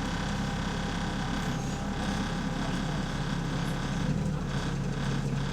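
Double-decker bus engine running steadily, heard from on board, with the exhaust leak that the recording is about. The low engine note firms up a little about four seconds in.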